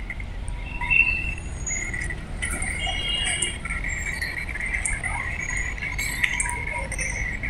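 Outdoor garden ambience: a steady high insect-like trill, with scattered short bird chirps and a constant low rumble underneath.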